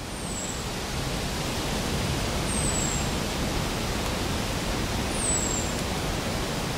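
A steady rushing noise that slowly swells, with three short, high, falling chirps about two and a half seconds apart.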